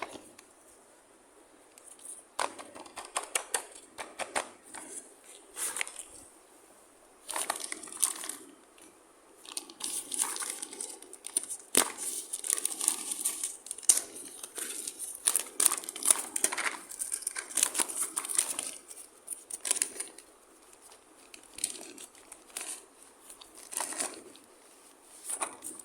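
Plastic packaging crinkling and tearing as toy pieces are unwrapped and handled, in irregular bursts with small sharp clicks and short pauses between.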